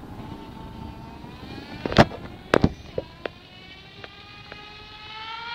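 A radio-controlled car's motor whining at a high, steady pitch that slowly rises. Several sharp knocks come about two to three seconds in, the first the loudest.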